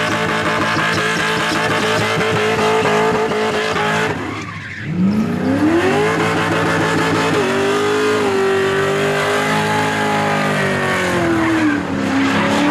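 Holden Commodore V8 held at high revs in a burnout, with tyres squealing. The revs fall away sharply about four seconds in, then climb back up and hold, dipping briefly again near the end.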